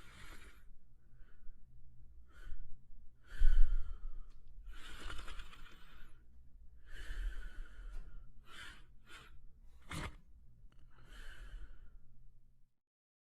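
French Spaniel breathing and snoring softly in its sleep, one noisy breath every one to two seconds. About three and a half seconds in comes one much louder breath with a low thump.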